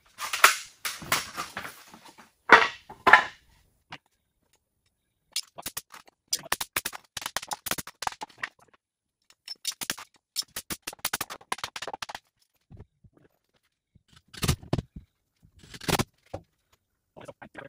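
Carpentry impacts on lumber: a few sharp bangs from a pneumatic framing nailer in the first three seconds, then a long run of quick hammer strikes on boards. Two heavier knocks follow near the end.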